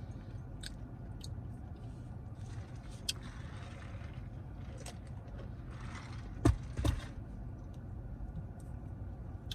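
Mouth eating sounds: chewing and biting of a burger and fries, with small clicks and a couple of sharp knocks about two thirds of the way through, over a steady low hum.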